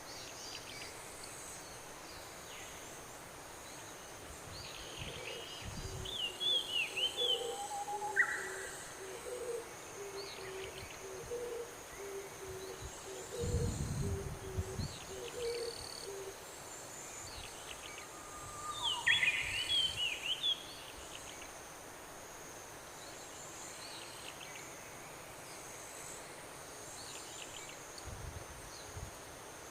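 Outdoor ambience with a steady high insect chorus and bird calls, chirping around 6–8 seconds in and again around 19–20 seconds. A run of low repeated notes sounds from about 5 to 16 seconds, with a couple of low thumps among them.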